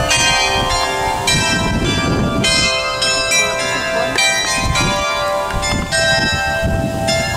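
Tower bells ringing: struck notes of different pitches come every second or so, each left to ring on so they overlap.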